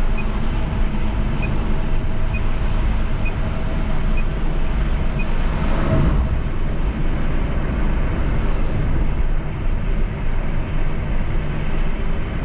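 Car driving on a highway: steady road and engine rumble with tyre noise. Faint ticks come about once a second for the first five seconds, and about six seconds in a louder rush swells and fades as another vehicle goes by.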